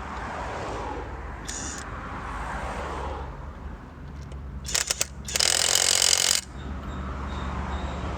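Cordless impact wrench, a Seesii WH350, run in short bursts while spinning wheel nuts back on: a few quick trigger blips, then about a second of loud rattling run that stops suddenly.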